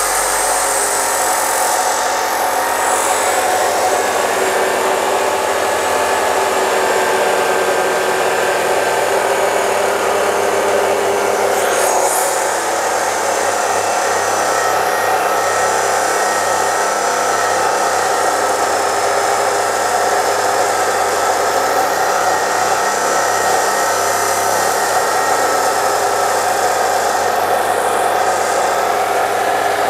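DeWalt D28730 14-inch abrasive chop saw with its motor running under load as the cut-off disc grinds steadily through a 6 mm-thick WF 150 steel wide-flange beam.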